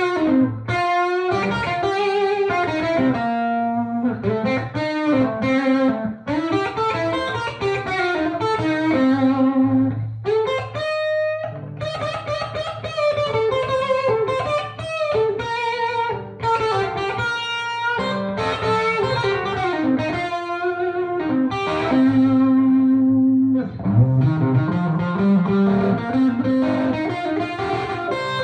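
Electric guitar playing single-note lead licks, with sustained notes and string bends, through a Mason Dixon Fillmore Edition 70-watt tube amp head with no effects, into a 2x12 cabinet loaded with JBL K120 speakers.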